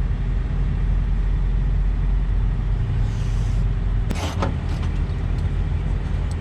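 A diesel truck engine idling steadily, with a short hiss of air about three seconds in and a brief clatter a second later.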